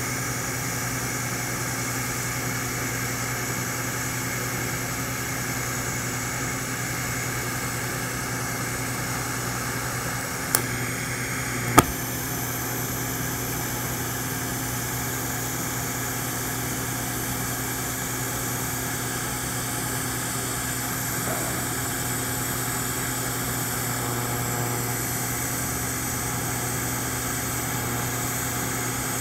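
TIG welding arc running the root pass on stainless steel pipe at about 95 to 100 amps, DC electrode negative: a steady hum with a hiss. Two sharp clicks come a little past the middle.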